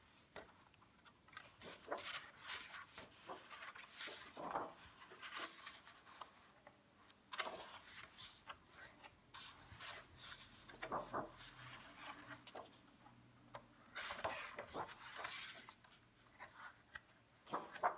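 Paper pages of a large illustrated book being turned and pressed flat by hand: soft rustles and swishes at irregular intervals, the longest a little over a second long near the end.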